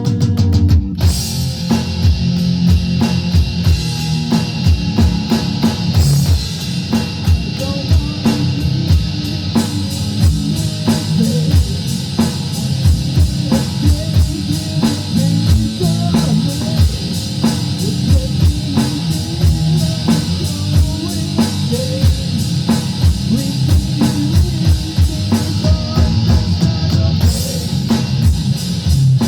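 Rock band playing an instrumental passage: guitar with a full drum kit and cymbals coming in about a second in, no vocals.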